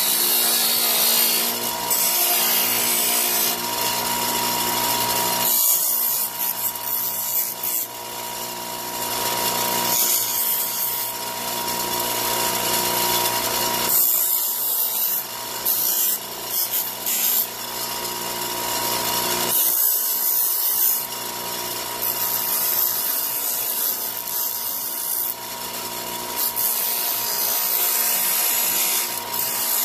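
Bench grinder running with a steady motor whine while a polycarbonate mirror blank is pressed against its wheel, giving a rasping grinding noise. The grinding eases off briefly about three times as the piece is lifted and turned.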